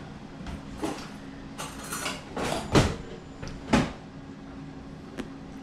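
Handling noise from the roasting pan, tin foil and fork as a smoked venison shoulder is probed for doneness: several short rustling, scraping swells, the loudest about three seconds in, and a small click near the end.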